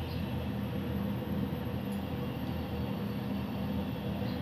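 Gas stove burner running under a pan of oil: a steady low rumble with a faint hum.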